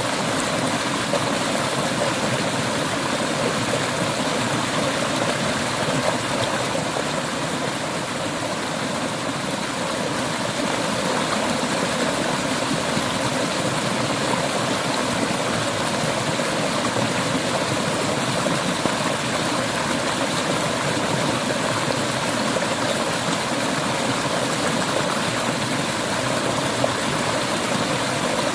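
Mountain river water flowing steadily, an even, unbroken rush.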